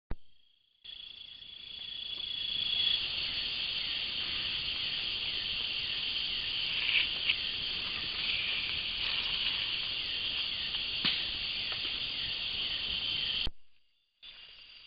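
Dense, steady, shrill chorus of night insects in tropical forest, with a few sharp clicks about seven seconds in and again near eleven seconds. The chorus cuts out briefly near the end and comes back.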